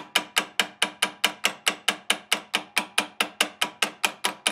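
Rapid, even hammer taps on the stuck cross-feed housing of a milling machine, about five strikes a second, each ringing briefly, as the housing is knocked loose.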